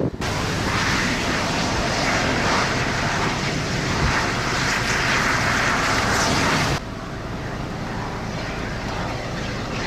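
Steady rushing storm wind with no distinct events. It steps up abruptly just after the start and drops abruptly to a quieter hush about seven seconds in.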